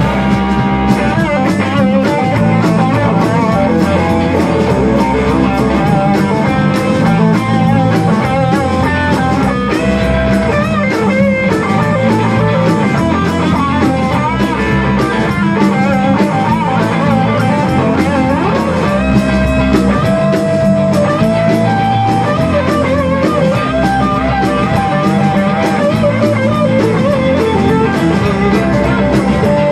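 Rock band playing live in an instrumental passage: Les Paul-style and Telecaster-style electric guitars, bass guitar and a Tama drum kit, loud and continuous.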